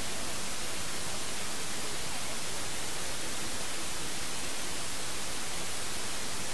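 Steady, even hiss like static, strongest in the high end, with no other sound standing out.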